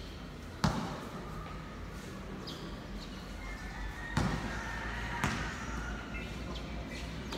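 Basketball thudding on a concrete court, three separate hits: the loudest under a second in, then two more at about four and five seconds in.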